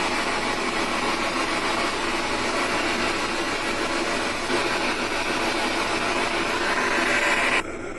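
Spirit box sweeping radio stations, giving out a steady hiss of radio static that cuts off suddenly near the end.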